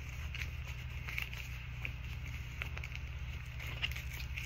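Tarot cards being handled and shuffled in the hands, a scatter of faint short clicks and riffles, over a steady low hum.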